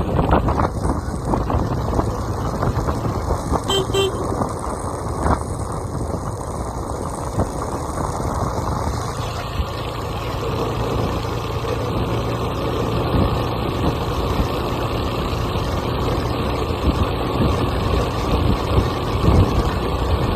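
Steady rumble of a moving vehicle, with wind buffeting the microphone. A brief double beep sounds about four seconds in.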